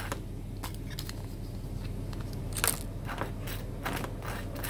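Table knife scraping spread across toasted bread: a run of irregular, crackly scrapes and clicks, one sharper one about halfway through, over a steady low hum.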